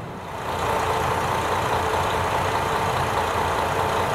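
A diesel railcar's engine running steadily, with a droning hum that grows louder about half a second in.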